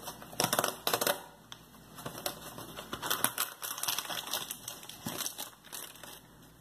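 Cardboard box of corn starch being opened and its inner bag pulled out, crinkling and rustling in irregular bursts, busiest about half a second in and again between three and five seconds in.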